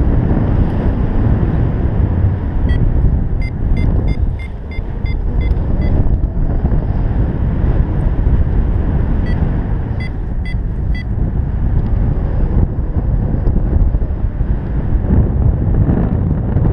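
Wind buffeting a GoPro microphone in flight: a loud, steady low rumble. Over it come two runs of short, evenly spaced high beeps, the climb tone of a paragliding variometer: one starting about three seconds in, the other about nine seconds in.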